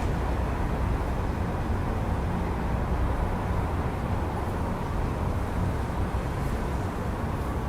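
Steady city traffic rumble heard through an open window, an even wash of road noise with no single vehicle standing out.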